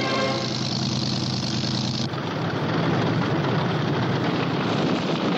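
Steady drone of an aircraft's engines, changing abruptly about two seconds in to the rougher, lower running of a tank engine.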